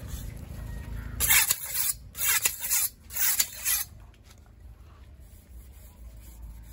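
A large filleting knife rasping through a giant stingray's skin and flesh in several short strokes about half a second apart, between about one and four seconds in, over a low steady background rumble.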